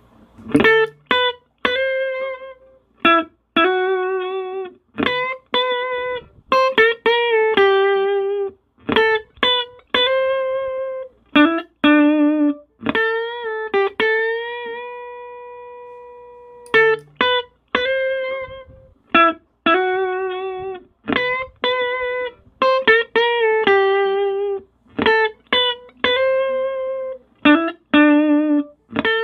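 Clean electric guitar (Sterling JP60) played through a compressor pedal: a single-note melody of plucked notes, with one long note about halfway through that rings on and slowly fades. The same phrase then starts over.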